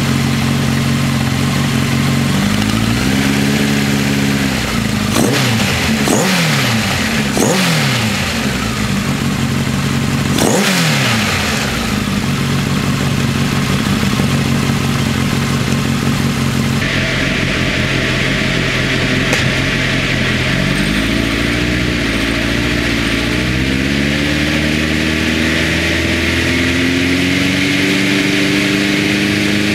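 Honda X-4's inline-four, breathing through Keihin FCR 41 mm carburettors and an r's gear Wyvern exhaust, idling with several quick throttle blips that rise and fall sharply in pitch. After about seventeen seconds a steady hiss comes in, and the engine, under load on a chassis dyno, climbs in revs in a series of rising steps.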